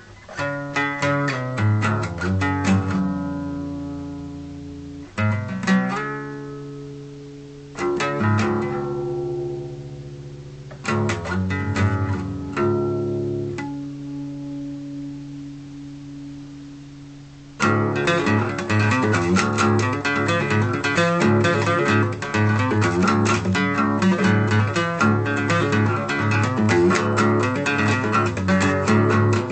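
Acoustic guitar playing blues: a few picked phrases, each left to ring and fade away, then just past halfway a sudden change to steady, busier rhythmic picking that keeps going.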